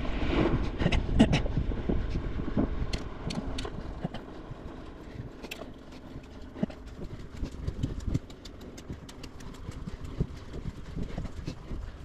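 Riverside 900 bicycle on knobby tyres riding over a rough track: a low rumble of tyres and wind with many scattered clicks and rattles from the bike, louder for the first three seconds and then quieter.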